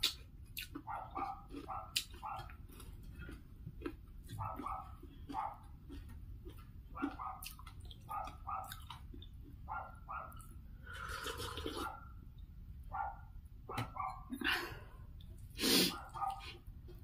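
A dog barking over and over in short barks that come in quick runs, over the clicks and smacks of someone eating by hand. There are two louder noisy bursts, about two thirds in and near the end.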